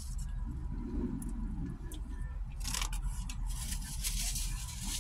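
A paper napkin and food wrapper rustling and being crumpled by hand, in bursts about halfway through and again near the end, over a steady low rumble inside a parked car.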